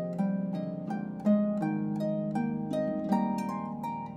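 Background harp music: a steady flow of plucked notes, about three a second, each ringing on and fading.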